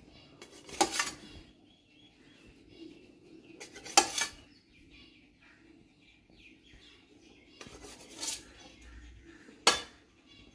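A kitchen knife trimming the crusts off a stack of white bread slices, its blade striking and scraping the steel plate beneath with a sharp metallic clink four times, a few seconds apart, with faint sawing through the bread in between.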